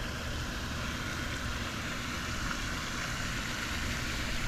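Steady outdoor background noise: a low rumble with an even hiss and no distinct events.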